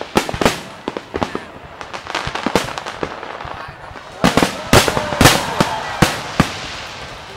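Fireworks display: aerial shells bursting in irregular sharp bangs with crackling between them, the loudest cluster of bangs coming from about four seconds in to near the end.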